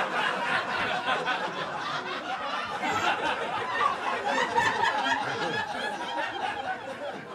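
Comedy club audience laughing, a steady mass of many voices.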